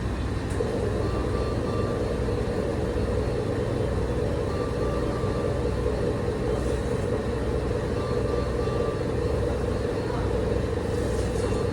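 A steady machine hum over a low rumble, with a faint short high beep about every three to four seconds.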